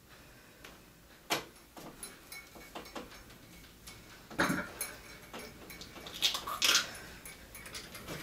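A man straining through a head-harness neck lift: grunts and hard breaths, strongest about four and a half seconds in and again between six and seven seconds. A sharp knock comes about a second in, with lighter clicks and knocks between.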